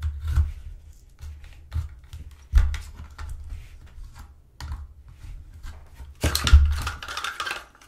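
A pointed tool prying at the plastic retaining tabs of a cordless vacuum's battery housing: scattered sharp plastic clicks and a few dull knocks, with a longer, louder scrape about six seconds in.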